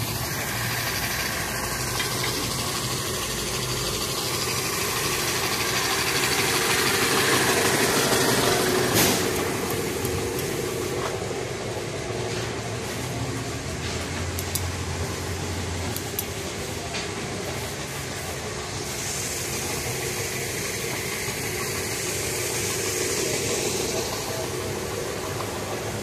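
Portable air compressor running with an air-fed spray gun hissing, then, from about nine seconds in, a TIG welding arc hissing steadily with a few scattered clicks.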